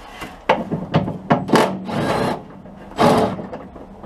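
Hand tools working on the Rover P6 rear axle's control-arm bolts from underneath: a few sharp knocks, then repeated rasping strokes at roughly one a second.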